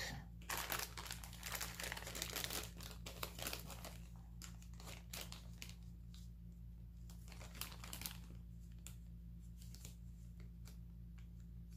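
Packaging being crinkled and torn open by hand, a run of irregular crackles and rustles that comes and goes, busiest in the first few seconds, over a low steady hum.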